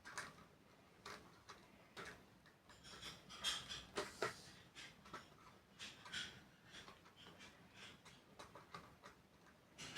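Clock movement ticking faintly about once a second. Between about three and four and a half seconds in, a few louder clicks and rustles sound over the ticking.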